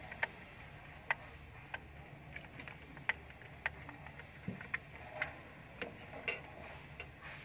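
Short, irregular clicks of a screwdriver working the terminal screws of a plastic voltage protection relay, about one or two a second, as the wires are tightened into its terminals. A faint steady low hum runs underneath.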